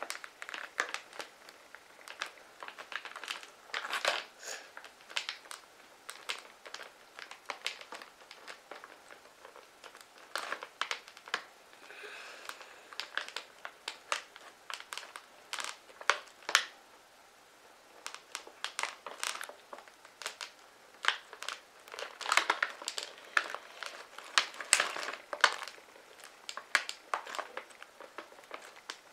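Plastic chip bag crinkling, with sharp irregular crackles as it is slowly handled to be opened quietly. Louder flurries come about four seconds in and again near the end.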